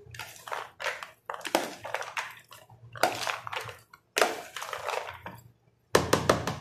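Boiled black chickpeas, potato and onion being tossed and mixed by hand in a plastic bowl: irregular bursts of rustling and shuffling. Near the end comes a quick run of knocks against the bowl.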